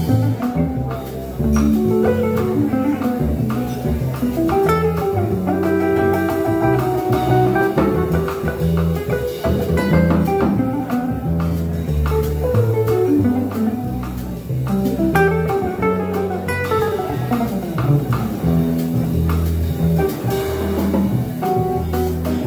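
Live jazz from archtop guitar, double bass and drum kit: the guitar plays a single-note line over a walking bass line, with light drums underneath.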